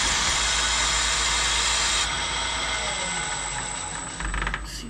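Bridgeport milling machine running with a steady hissing whir; the hiss cuts off about two seconds in and the machine sound fades down, with a few knocks near the end.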